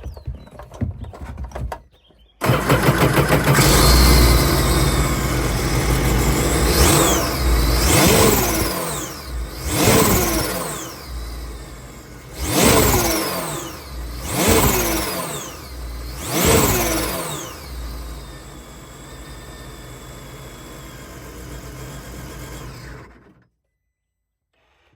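Supercharged Sea-Doo engine starting, then blipped six times, each time dropping back in pitch, before idling and shutting off suddenly near the end.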